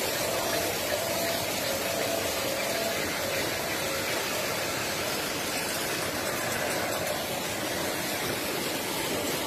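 Automatic coach washing plant running against a passenger train moving through it: rotating brushes and water spray scrubbing the coach sides, a steady, even wash of noise with a faint steady hum.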